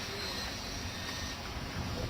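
Electric radio-controlled helicopter running, a steady high motor whine over a low rotor and wind rumble.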